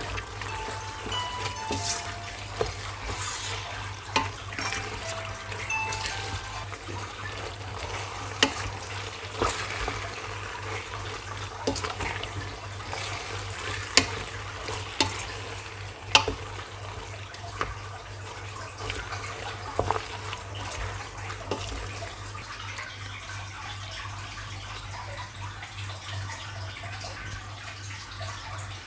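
Water running from a tap, with sharp clinks of dishes and utensils scattered through and a steady low hum underneath. Faint music plays in the first few seconds.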